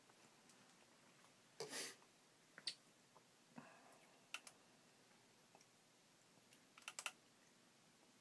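Faint, scattered light taps and clicks, with a brief scratchy brushing noise about a second and a half in and a quick cluster of clicks near the end.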